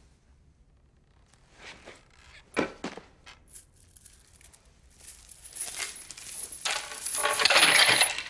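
A few scattered sharp metallic clinks, then a jangling, clattering rattle that builds and grows loud over the last three seconds before it stops suddenly.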